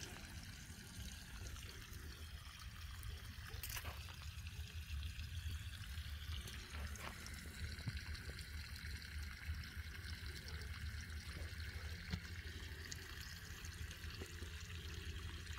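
Water spraying and trickling steadily onto bean plants and soil as the garden is watered; faint.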